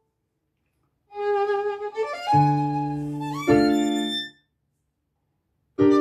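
Solo violin bowing a short phrase of a few held notes, with an upward slide into a higher note partway through. The phrase sits between pauses of silence, and a new, louder phrase starts near the end.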